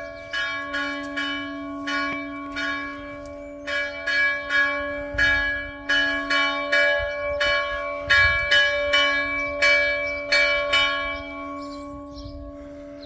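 Church bells ringing, struck irregularly at about two to three strokes a second, each stroke leaving a sustained hum. The strokes stop near the end and the bells ring on, fading.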